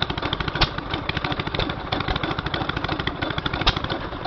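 Vintage hopper-cooled stationary gas engine running with a steady rapid clatter, and two louder bangs, one about half a second in and one near the end.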